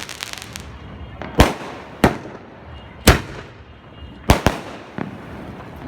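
A 50-shot skyshot fireworks cake firing: about six sharp bangs at irregular intervals, two of them close together, with faint crackle between them.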